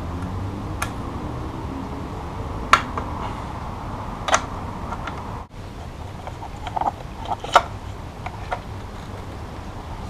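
Scattered light clicks and knocks of hand work on a motorcycle, as tools and clutch-cable parts are handled, over a steady background rumble.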